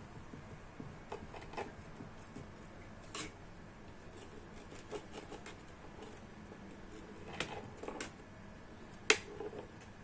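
Pizza cutter wheel rolling and pressing through a waffle in a metal pan, with scattered clicks and taps of the cutter and a metal spatula against the pan. The loudest is a single sharp tap about nine seconds in.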